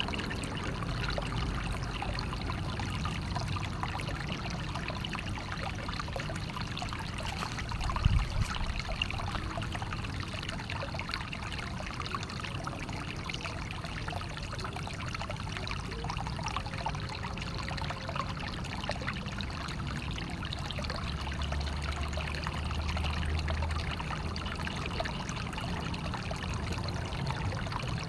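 Naturally flowing water running and trickling steadily, with a brief low thump about eight seconds in.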